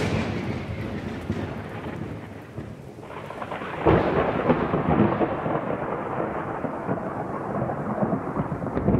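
Thunderstorm: thunder rumbling over a steady hiss of rain. The first rumble dies away early, and a new roll of thunder builds about three seconds in and swells about a second later.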